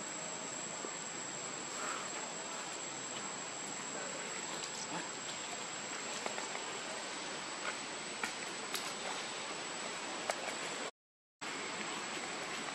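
Outdoor insect chorus: one steady high-pitched whine over an even hiss, with scattered faint clicks. Near the end the sound drops out completely for under half a second.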